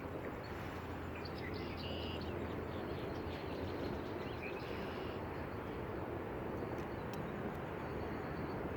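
Steady outdoor background noise with a few short, high bird chirps, about a couple of seconds in and again around the middle.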